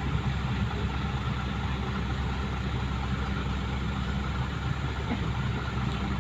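Heavy truck engine running steadily at an even, low rumble.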